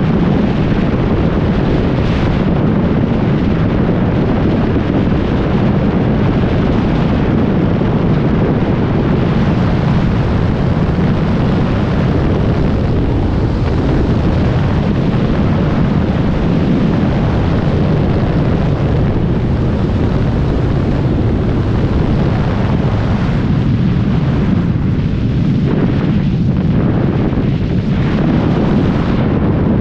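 Freefall wind: a loud, steady rush of air buffeting the microphone of a skydiving camera at terminal speed.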